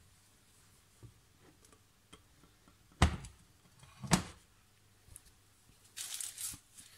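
Two sharp knocks about a second apart, then a short rustling clatter near the end: kitchen handling noise.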